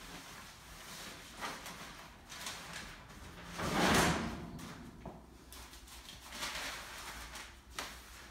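Metal grate sliding out of the base of a large wire cage, a scraping slide about four seconds in that is the loudest sound, with shorter knocks and scrapes around it.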